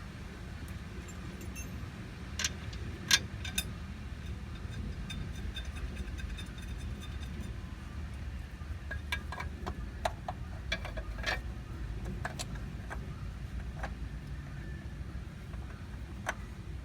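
Scattered sharp metallic clinks and taps of hand tools and parts being handled during a clutch installation, loudest about three seconds in and again in a cluster past the middle, over a steady low hum.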